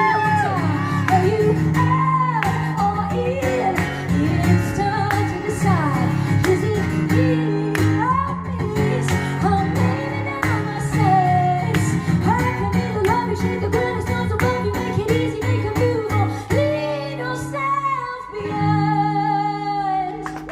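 A woman singing live over a strummed guitar accompaniment, with a wavering sung melody above steady chords.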